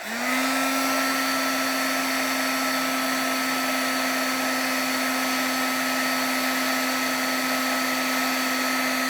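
Craft embossing heat tool switched on and running steadily, a fan whine over rushing hot air, melting embossing powder.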